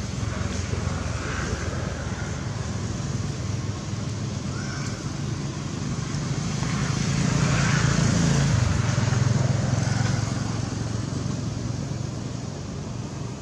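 A motor vehicle's engine hum that swells about six seconds in, peaks around eight seconds and then fades, as it passes by.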